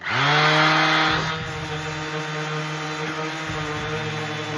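Ryobi orbital sander switched on: its electric motor spins up with a quickly rising whine, then runs at a steady hum. It is loudest for about the first second, then settles a little quieter.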